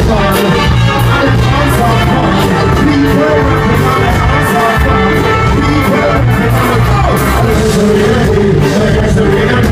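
Live band music played loud, with a steady beat of cymbal strikes over a heavy bass line and some vocals.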